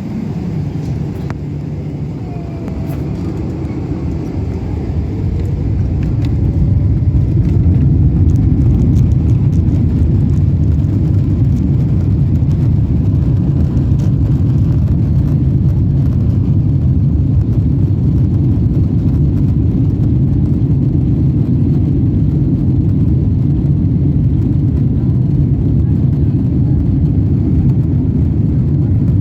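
Steady low rumble of a Boeing 777-300ER's GE90 engines and airflow heard inside the cabin. It grows louder about five seconds in, then holds level.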